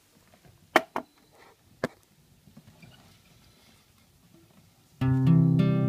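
A few sharp knocks of the phone being handled and set in place, then about five seconds in an acoustic guitar chord is strummed and rings on, the opening of the song.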